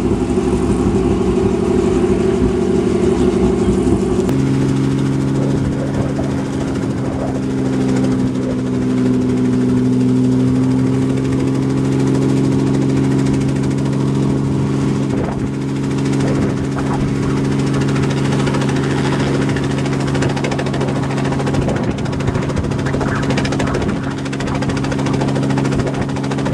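Small helicopter running on the ground with its rotors turning before takeoff: a steady engine and rotor drone. About four seconds in, the engine note changes and a deeper tone comes in, then holds steady.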